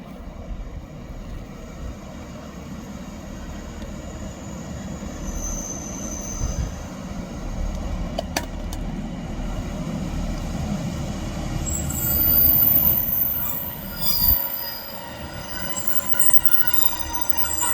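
A passenger train running along the line, its low rumble building, with a sharp click about eight seconds in. In the second half, high, steady metallic squealing joins the rumble.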